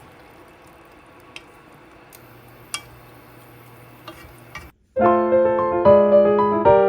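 Faint background noise with a few light clicks, then piano background music starts about five seconds in and is the loudest sound.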